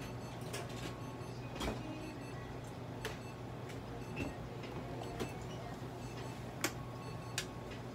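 Steady electrical hum of clinic equipment, with a few faint steady tones above it and about eight light, sharp clicks at irregular moments.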